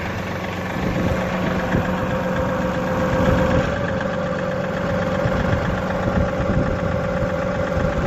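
John Deere 2038R compact tractor's three-cylinder diesel engine running steadily while the rock shaft lowers the three-point arms. A steady whine comes up over the engine about two to three seconds in.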